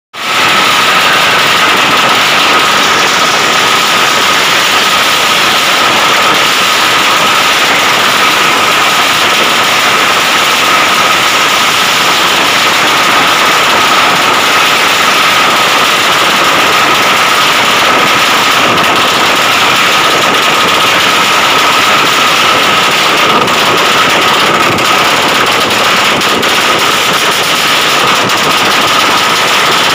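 Drag-racing motorcycle engine through an open racing exhaust, running loud and held at a steady high speed.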